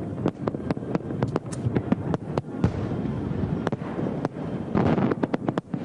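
Aerial fireworks display: many shells bursting in quick, irregular succession, sharp bangs over a continuous low rumble.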